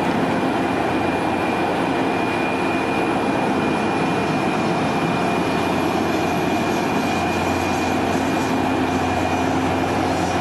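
Heavy machinery running steadily, with a constant high-pitched whine over a low engine hum.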